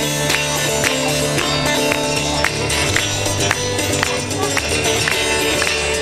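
Solo steel-string acoustic guitar played fingerstyle: held bass notes under a plucked melody, with regular sharp percussive slaps struck on the strings and body.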